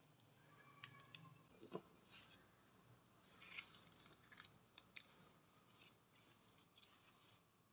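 Faint scattered clicks and brief scrapes of a power bank's plastic case being worked at to pry it open.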